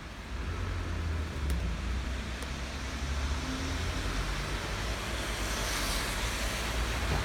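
Steady rain falling over a low rumble of road traffic, with a swelling hiss around six seconds in.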